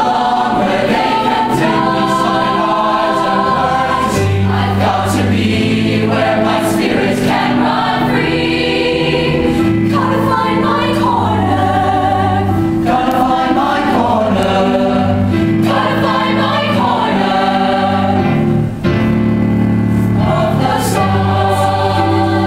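Mixed-voice show choir singing in harmony, girls' and boys' voices together, over a steady low bass line.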